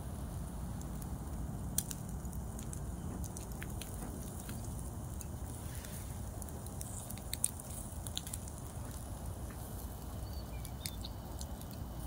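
Grill fire crackling: light scattered crackles and clicks, with two sharper snaps about two seconds in and about seven seconds in, over a steady low rumble.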